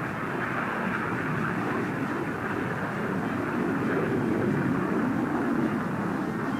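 Steady jet aircraft noise, a continuous rush of sound without a clear pitch, heard through a narrow-band old film soundtrack and growing a little louder about halfway through.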